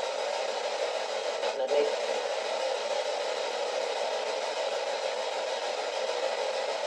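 Spirit box radio scanner hissing out steady static, with a brief break about a second and a half in.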